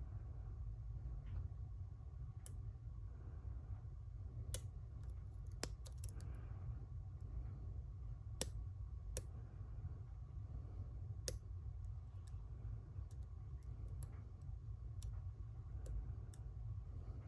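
Small, irregular metallic clicks of lock picks working inside a Schlage Primus lock cylinder, with a few sharper clicks near the middle, over a steady low hum.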